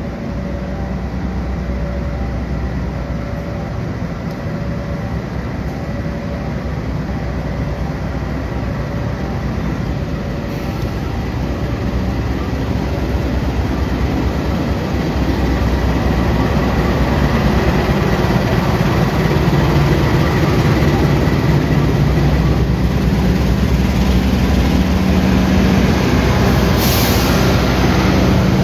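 Diesel-electric locomotive running slowly through the station, its engine's steady low drone growing louder as it draws near. A short hiss comes near the end.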